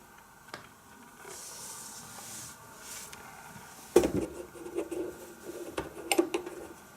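A sharp click about four seconds in, then a run of small knocks and rattles for a couple of seconds, over a faint steady hum.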